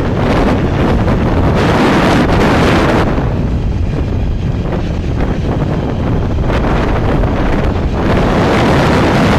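Wind buffeting the microphone of a camera on a moving motorbike, with the bike's running noise underneath; the rush eases for a few seconds in the middle, then picks up again.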